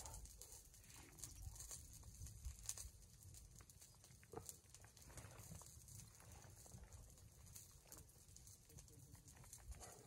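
Near silence: faint outdoor ambience with a low rumble and scattered small clicks.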